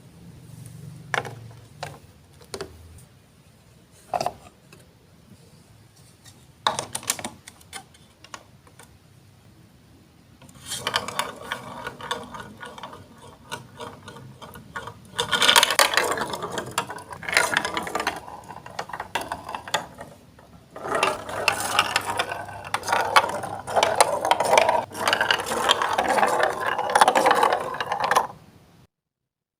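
Marbles rolling and clattering through a Lego Duplo block track: scattered single clicks at first, then from about a third of the way in a dense, continuous rattle that gets louder midway and stops abruptly near the end.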